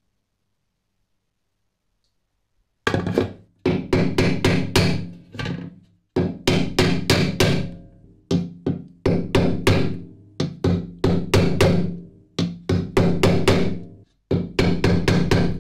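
Repeated strikes on a plastic punch that is driving dents out of an aluminium lamp reflector seated on a plastic concave anvil. The strikes start about three seconds in and come in quick runs of about three a second with short pauses between them, and the thin aluminium bowl rings under them.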